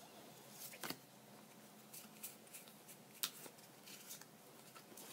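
Faint, scattered clicks and light rustles of trading cards being handled and slid apart, the sharpest click about three seconds in.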